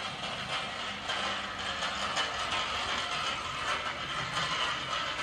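Overhead electric hoist running steadily, with a continuous fine mechanical rattle.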